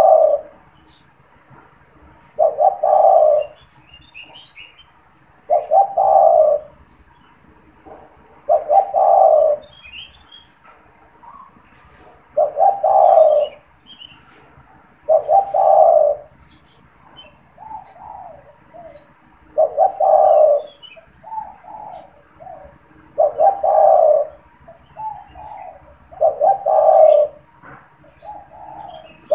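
Male spotted dove (tekukur) cooing its song over and over, a loud low coo phrase about every three seconds with softer coos between them. Faint high chirps of small birds sound in the background.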